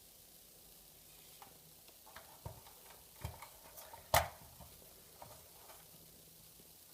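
Scattered small clicks and light knocks of a tin toy being handled, the loudest a single sharp click about four seconds in.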